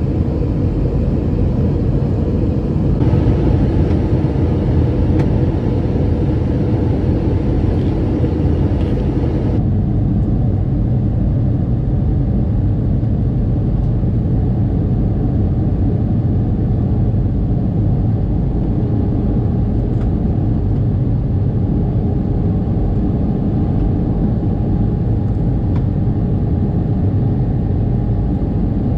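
Steady rumble of an Airbus A321's jet engines and rushing airflow, heard inside the cabin at a window seat over the wing on approach to land, with a faint steady engine whine. The character of the noise shifts slightly about 3 and 10 seconds in.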